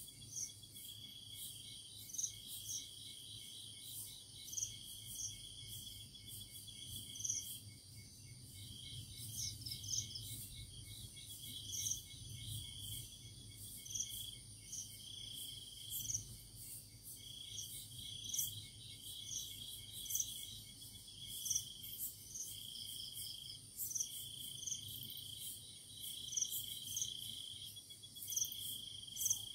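Crickets trilling at night: a steady high trill broken into bursts a second or two long, with a higher, shorter chirp repeating about once a second.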